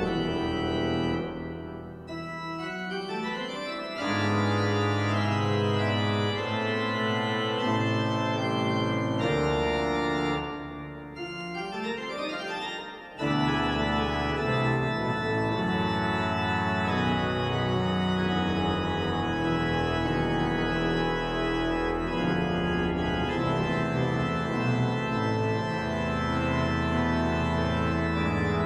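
Pipe organ playing full sustained chords. Twice, about a second in and again about ten seconds in, the sound thins to a quieter, fast rising run before the full chords come back loud.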